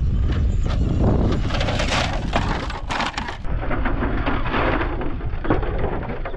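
Gravel crunching and clattering under a Traxxas Stampede RC truck as it tumbles over on rocky dirt, over a heavy wind rumble on the microphone.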